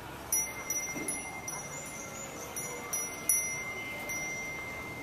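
Small hanging bells tinkling: about eight light, high-pitched strikes at irregular intervals, with a steady high tone under them.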